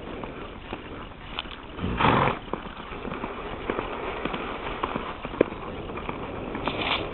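Hoofbeats of a horse moving over sandy dirt under a rider, heard as scattered soft clicks, with a short loud burst of noise about two seconds in.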